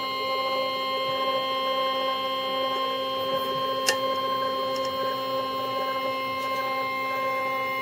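PetBot PET-bottle filament maker running: its spool motor pulling the filament through the hot end gives a steady electric whine made of several held tones, with one sharp tick about four seconds in.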